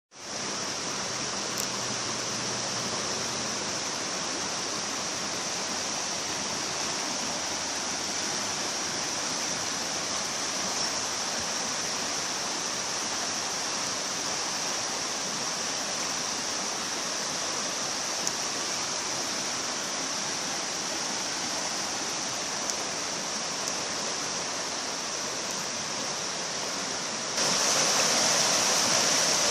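River water rushing past in a steady wash of noise, getting noticeably louder about two seconds before the end.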